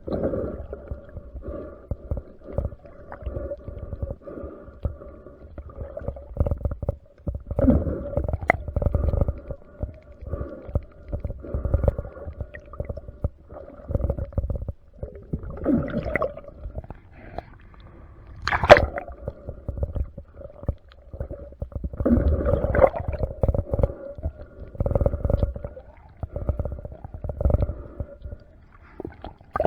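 Underwater sound picked up by a camera in a waterproof housing: low, irregular rumbling surges of water moving past the diver, over a steady hum, with a sharp click about two-thirds of the way in.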